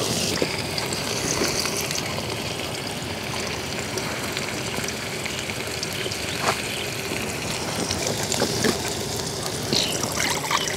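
Onions, green chillies and chopped tomatoes frying steadily in hot oil in an aluminium karai. A metal spatula clinks and scrapes against the pan a few times.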